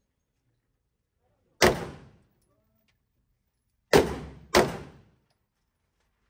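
Three sharp gunshots in an indoor range, each with a short echoing tail: one about a second and a half in, then two more about two-thirds of a second apart near the four-second mark.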